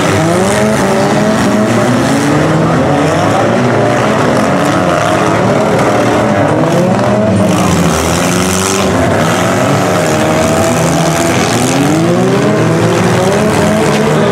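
Several demolition-derby compact cars' engines revving at once, their pitches rising and falling over one another as the cars accelerate, back up and ram.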